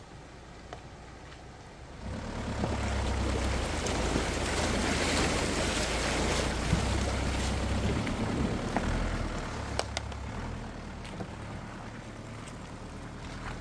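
Mitsubishi Pajero's DI-D turbodiesel engine pulling the SUV through a shallow river, with water splashing and rushing around the tyres. The engine and splashing come up about two seconds in, are loudest in the middle, and the splashing fades near the end while the engine keeps running more quietly.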